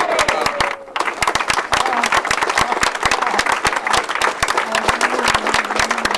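The tail of a group's shout falling away in the first second, then a small group of people clapping hands in a dense, steady round of applause.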